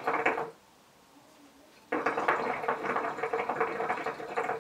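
Hookah water bubbling as smoke is drawn through the hose. One pull ends about half a second in, and a second, longer pull starts about two seconds in.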